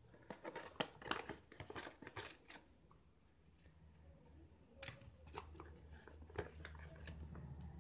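Foil-lined meal pouch crinkling while a plastic spoon scrapes baked beans out of it onto a plastic tray: a quick run of faint rustles and clicks over the first couple of seconds, then a few scattered taps and crinkles.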